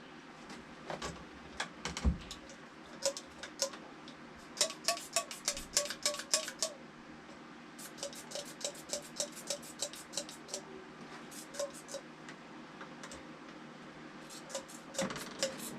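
Light clicks and ticks from handling the chainsaw and refuelling gear, coming in quick irregular runs of several a second.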